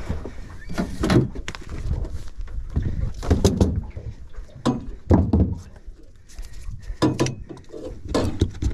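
Irregular knocks and thuds on a small boat's deck as a landed barramundi in a landing net is handled on the floor.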